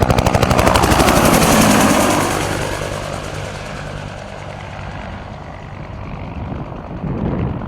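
Bell UH-1 Huey helicopter flying past: its rotor blades beat in a rapid, even chop, the pitch drops in the first two seconds, and the sound then fades away, swelling slightly again near the end.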